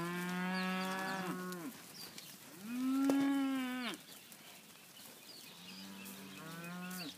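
Black and black baldy steers mooing: three long moos, the second higher-pitched and loudest, the third fainter near the end.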